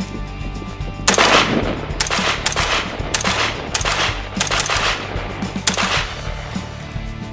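AR-style rifle fired in quick semi-automatic succession: about eight shots, one to two a second, starting about a second in and stopping about six seconds in. The first shot is the loudest. Background music with steady low notes plays underneath.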